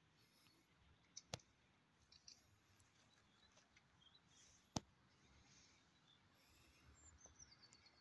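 Near silence outdoors, broken by two sharp clicks, one about a second in and a louder one about five seconds in. Faint high bird calls run underneath, with a short descending run of high notes near the end.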